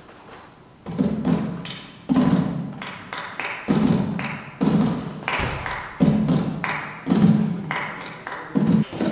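A slow beat of heavy percussive thuds, about one a second, some louder than others, each dying away quickly.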